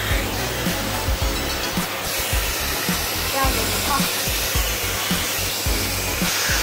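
Bosch vacuum cleaner running steadily as it is pushed over the floor, with background music with a steady beat.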